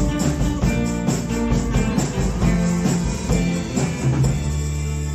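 Live rock-and-roll band playing: electric guitar, bass guitar and drum kit with a steady beat. About four seconds in, the drums stop and a held chord rings on.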